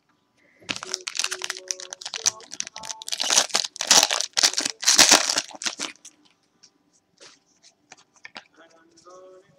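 Trading-card pack wrapper crinkling and tearing as it is opened and handled, with irregular crackles for about five seconds before it dies down to a few faint ticks.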